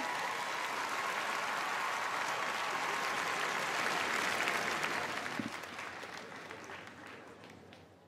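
Large theatre audience applauding, steady for about five seconds and then fading away.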